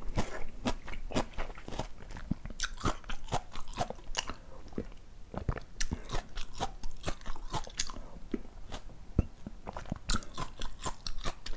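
Close-miked chewing of food, a dense run of crunches and wet mouth clicks.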